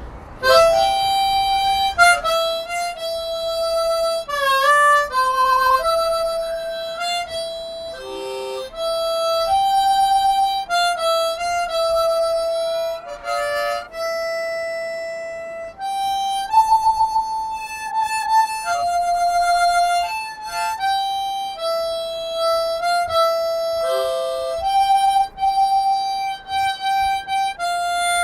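A harmonica playing a slow melody of single held notes, with a few bent notes and one wavering, shaken note partway through.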